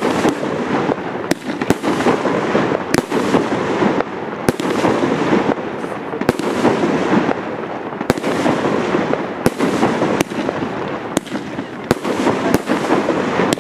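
Professional category-4 fireworks display: a rapid string of aerial shell bursts, sharp bangs about once a second, over a continuous dense noise of the show.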